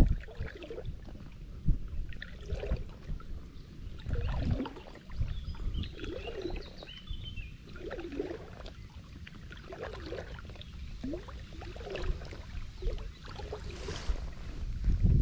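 Water sloshing and lapping against a float tube as it moves on the river, with small irregular splashes over a low rumble.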